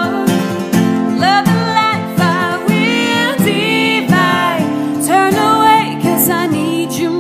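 A woman singing with vibrato over an acoustic guitar, in a live acoustic duo performance.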